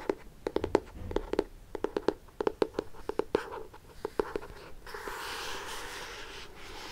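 Quick light tapping on a book in irregular runs. About five seconds in, this gives way to a soft, steady rubbing hiss.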